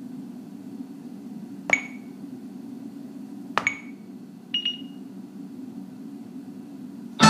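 Sharp clinks, each with a short high ring, struck about every two seconds, with a quieter double clink at a different pitch in between, over a steady low hum.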